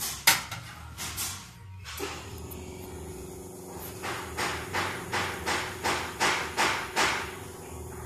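Porcelain cup clicked down on the metal drip tray of a one-group Faema E61 espresso machine. About two seconds in, a steady hum starts as the machine begins pulling the shot. From about four to seven seconds there is a rhythmic pulsing hiss, roughly three pulses a second.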